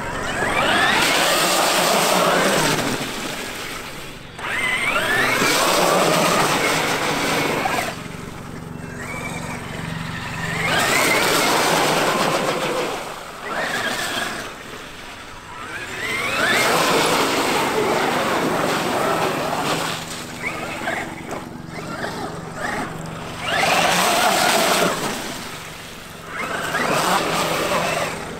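Traxxas X-Maxx RC monster truck's VXL-8s brushless electric motor whining up in pitch in repeated bursts of two to three seconds as the truck accelerates through puddles, its tyres splashing and throwing up spray.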